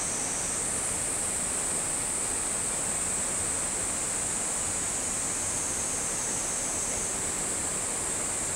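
Cicadas shrilling: a steady high-pitched drone, over a soft even rush.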